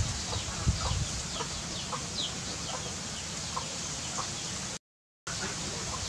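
A young chick peeping: short, high calls repeated about twice a second over a steady hiss. The sound cuts out for a moment near the end.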